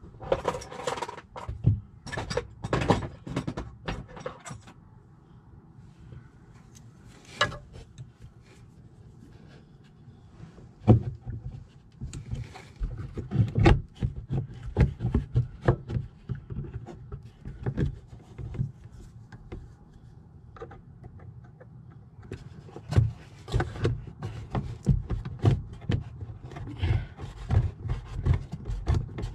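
Irregular clicks, knocks and scraping of a screwdriver and hands working on the fittings of a brass gas valve manifold at close range.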